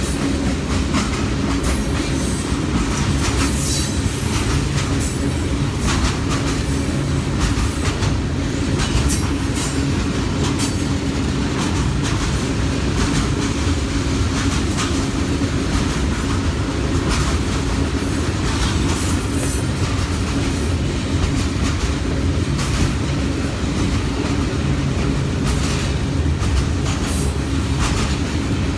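Freight train cars rolling past: a steady low rumble of wheels on rail, with scattered short high-pitched squeals and clanks.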